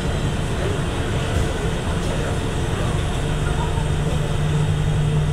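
Rubber-tyred Bukit Panjang LRT car running along its elevated guideway, heard from inside the cabin: steady rolling and running noise, joined about three seconds in by a low steady hum.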